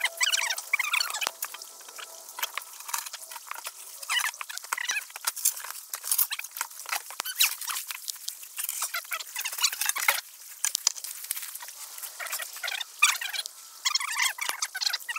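Crackling and rustling in dry leaves and brush, with scattered sharp clicks and knocks, as people move about and handle wooden boards.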